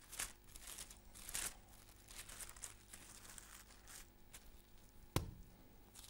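Thin Bible pages rustling and crinkling as they are turned, in several faint bursts. A single sharp knock about five seconds in is the loudest sound.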